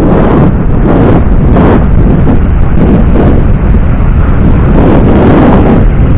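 Loud, gusting wind buffeting on an action camera's microphone while riding an electric bike at speed.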